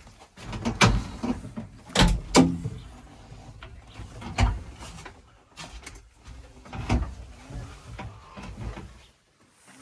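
A series of loud, irregular knocks and clanks over a low rumble, which cuts off near the end.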